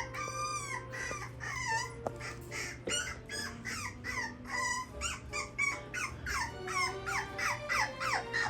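Young puppy whining and yelping in a rapid string of short, high-pitched cries, several a second.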